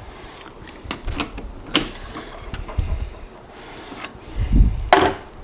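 Chuck key turning in a metal lathe's three-jaw chuck to loosen the jaws, with scattered metal clicks and knocks as the workpiece is freed and lifted out. The loudest moment is a low rumble ending in a sharp clank near the end.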